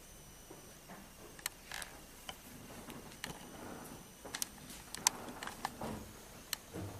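Faint, irregular knocks and clicks of footsteps as an actor walks across a stage in a quiet hall, over light room hiss.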